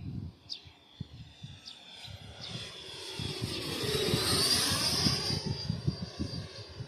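A Freewing 90mm F-16 electric ducted-fan RC jet making a pass. The fan's whine swells to a peak about four seconds in, its pitch bending down as it goes by, then fades away.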